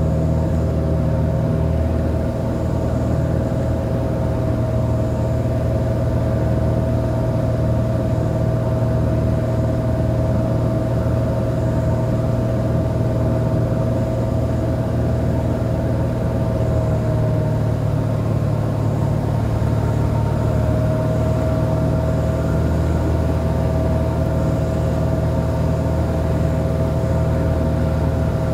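Cessna 182R Skylane's six-cylinder Continental O-470 engine and propeller running steadily in flight, heard as a constant drone inside the cockpit.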